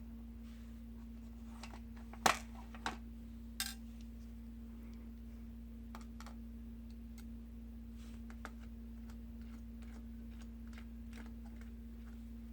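Small sharp clicks and taps of a precision screwdriver and metal parts as screws are undone from a laptop's heat-pipe cooling assembly, three louder clicks close together a couple of seconds in, over a steady low hum.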